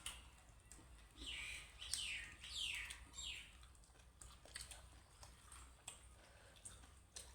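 A bird calling: four quick falling notes, one after another, starting about a second in, with a few faint clicks.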